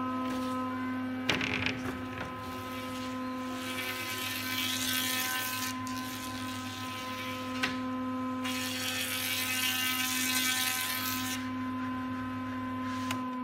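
Woodworking jointer running with a steady hum and whine, its cutterhead hissing as a wide board is fed across it in two passes, about four seconds in and again about eight and a half seconds in. A couple of sharp knocks as the board is handled.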